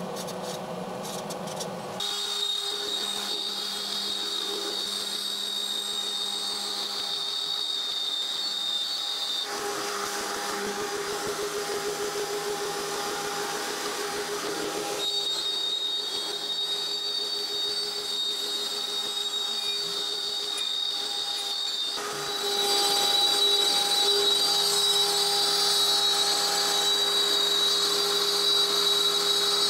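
CNC router spindle running with a steady high whine, cutting into an MDF jig board; the tone shifts a few times and grows louder after about 22 seconds.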